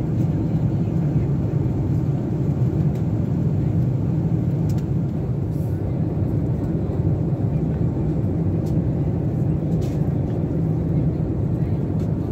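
Steady low drone inside the passenger cabin of a Boeing 747 in cruise, with a few faint clicks.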